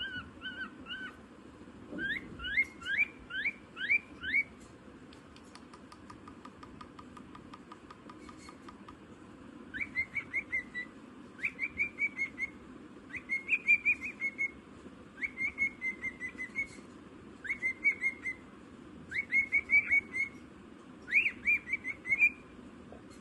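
Parrot whistling: a run of rising whistles, then a short phrase of one rising whistle followed by quick chirps, repeated about every two seconds.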